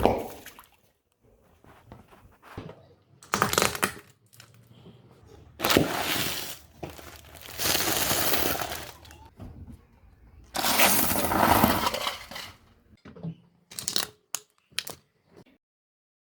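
Objects crunching and crumpling as they are crushed under a car's tyres, in several separate bursts of one to three seconds, followed by a few short sharp cracks near the end.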